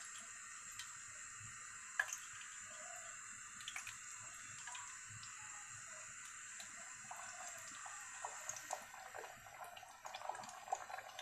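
Luchi (rolled maida dough) deep-frying in hot oil: a steady sizzle with scattered crackles. The crackling gets busier and louder about ten seconds in.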